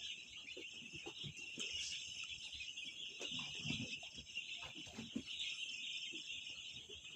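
Steady high-pitched insect chorus, with scattered soft knocks and rustles.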